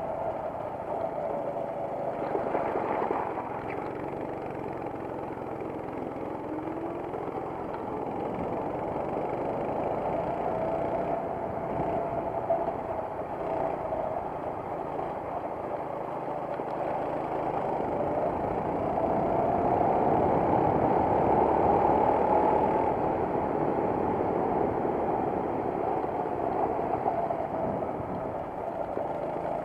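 Racing kart engine heard from on board at race pace, its pitch climbing down the straights and dropping into the corners, loudest and highest about two-thirds of the way through.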